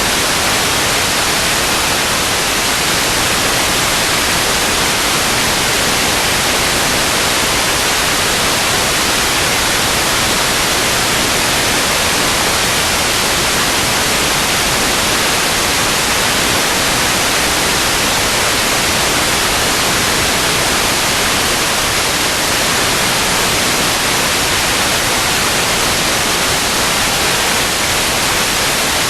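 Steady, loud static hiss, even across high and low pitches, with no change throughout: the empty audio channel of an analog FPV video link.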